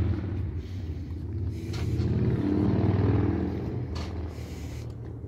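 A vehicle engine running at low revs. Its rumble swells and eases twice, with a couple of light knocks about two and four seconds in.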